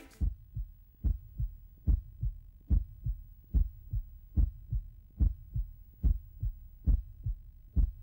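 Heartbeat sound effect: slow, even double thuds (lub-dub), about seventy beats a minute, starting just as the music stops.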